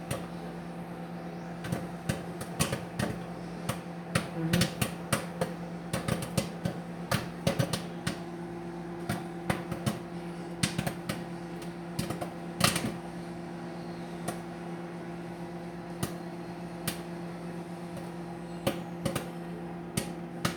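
Microwave popcorn popping in a running microwave oven: sharp irregular pops over the oven's steady hum, coming thick and fast at first and thinning out to scattered pops in the second half as the bag nears done.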